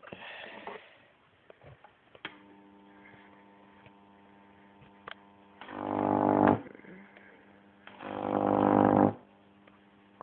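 Microwave oven transformer with a capacitor switched on with a click, then humming steadily. Twice it draws a loud, buzzing high-voltage arc of about 2 kV, each growing louder for about a second before cutting off suddenly.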